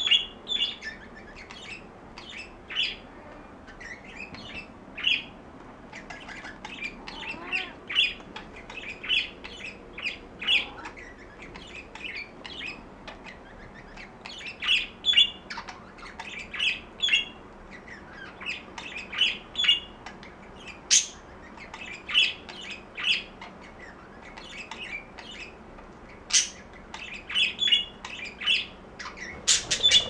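Budgerigar chirping and squawking in short, irregular calls, with a few sharper, louder squawks scattered among them.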